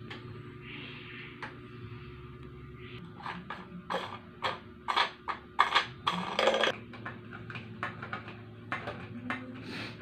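Electric stand fan parts being handled and fitted during assembly: a run of short clicks and knocks of plastic and metal, thickest in the middle, over a faint steady hum.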